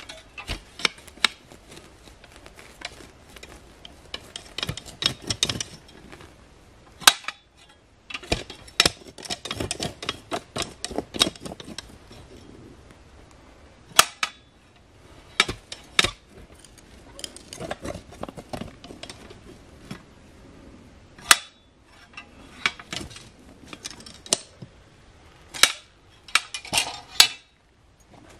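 A steel clamshell post-hole digger being driven into earth again and again, its blades crunching and scraping into soil, with sharp metallic clinks and knocks scattered through.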